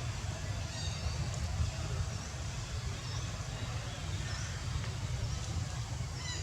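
Outdoor ambience: a steady low rumble with a few faint, short high chirps spaced about a second apart.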